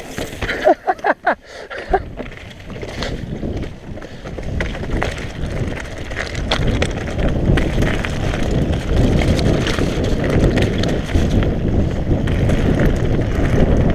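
Mountain bike descending a rough trail: the tyres rumble over dirt and roots, with constant clattering knocks from the bike and wind buffeting the microphone. A brief wavering high-pitched squeal comes about a second in.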